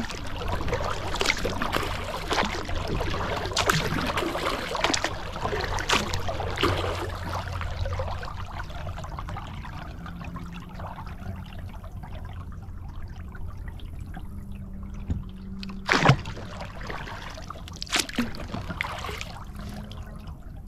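Kayak paddle strokes, water trickling and dripping off the blades about once a second, easing off about eight seconds in to quieter water sounds. Two sharp knocks come near the end.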